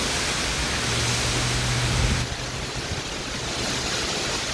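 Heavy wind-driven downpour: a steady, dense hiss of rain. A low hum comes in about a second in and cuts off a little after two seconds, where the sound is loudest.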